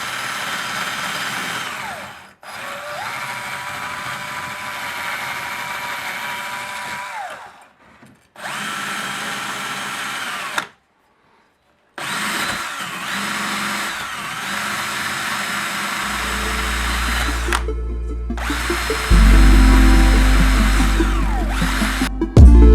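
A small electric power tool whining steadily in several short cut-together clips, spinning up and down at the edges, with a brief silent gap between clips. Bass-heavy music comes in partway through and grows louder near the end.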